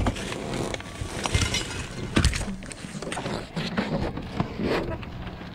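Plastic garbage bags rustling and crinkling while bags and boxes of food are shifted around inside a dumpster, with irregular knocks and clatter, the loudest a little after two seconds in.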